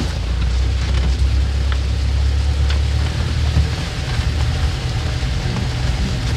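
Motor vehicle engine running under a steady noisy hiss; its low drone shifts about three and a half seconds in.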